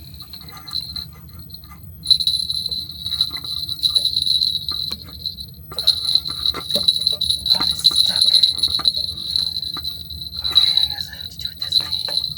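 Small bite-alarm bell on an ice-fishing line jingling rapidly and continuously as a fish takes the bait. It starts faintly, rings loudly from about two seconds in, and breaks off briefly near the middle before going on.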